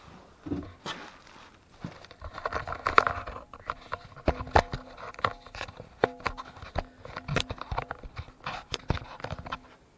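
Handling noise as a small camera is set back up on a table: a string of irregular knocks and clicks with some rustling, and a faint steady hum underneath from about four seconds in.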